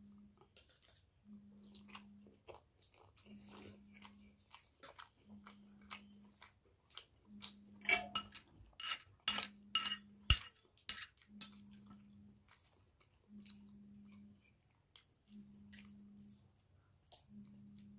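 Close-miked chewing and biting of food, with mouth clicks. A run of loud, crunchy bites comes in the middle.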